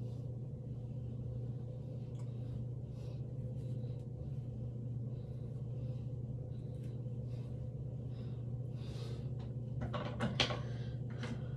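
Hair being brushed and worked by hand close to the microphone: short, soft scratchy strokes, then a burst of louder scraping with one sharp click about ten seconds in, over a steady low hum.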